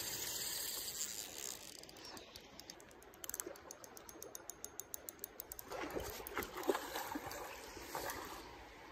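Fishing reel clicking rapidly and evenly for a few seconds while a hooked silver salmon is played on a bent rod, then a few louder, irregular splashes at the water.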